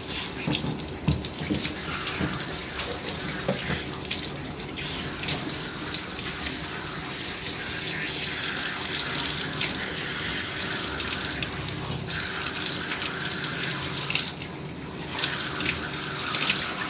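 Hand-held bath sprayer running steadily, water spraying onto a dog's thick coat and splashing in the grooming tub.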